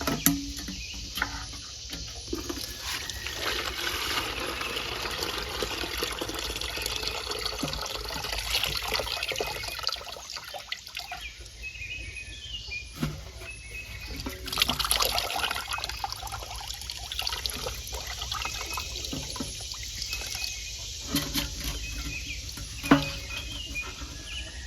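Gasoline sloshing and trickling in the removed plastic fuel tank as it is handled, with scattered small clicks and knocks while the clogged filter screen is worked out of the tank outlet.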